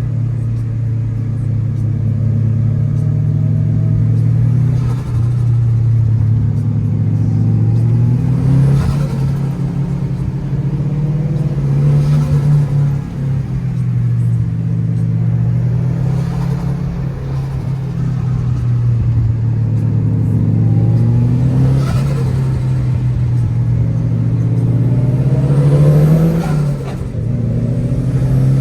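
A turbocharged KA24 four-cylinder in a Nissan S13, breathing through an HKS Hi-Power exhaust, driven hard with the revs rising and falling. Short sharp turbo noises break in roughly every few seconds, as the throttle comes on and off between corners.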